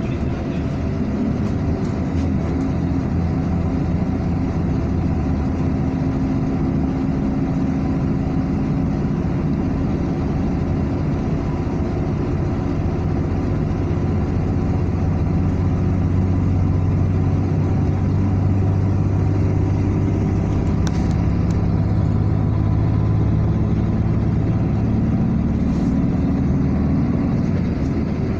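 A car driving steadily on a highway: the engine hums under tyre and road noise, and its low note grows a little louder about halfway through.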